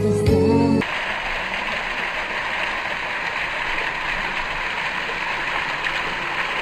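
A small cascade of water splashing steadily down a wall of stacked rocks, an even rush of falling water. Background music cuts off about a second in.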